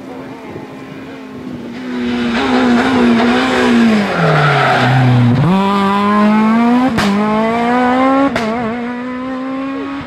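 Renault Clio S1600 rally car's 1.6-litre four-cylinder engine passing at racing speed: the revs fall as it brakes into a bend with some tyre squeal, then climb hard as it accelerates away. Two sharp cracks come about a second and a half apart, the revs dropping at the second as it changes up.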